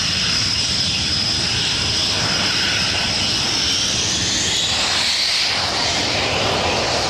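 Panavia Tornado jet engines running with a high whine over a broad rushing noise; about four seconds in the whine splits, one tone rising and another falling.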